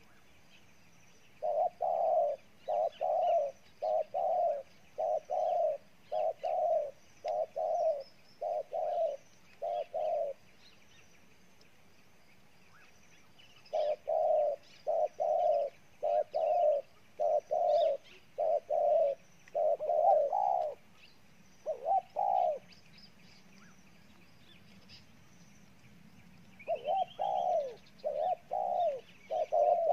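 Spotted dove cooing: runs of short, low coos at roughly one a second, in three bouts with pauses of a few seconds between them. Faint chirps of small birds sound behind.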